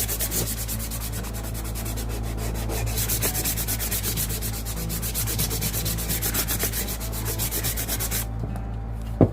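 Sandpaper rubbed by hand over a painted, decoupaged wood block in quick, even back-and-forth strokes, dulling the glossy finish so paint and napkin share one sheen. The sanding stops near the end, followed by a single short thump, the loudest sound.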